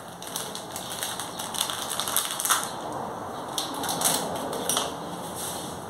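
Crinkling of a small plastic spice sachet being folded shut by hand, a crackly rustle that comes in two bunches of quick clicks.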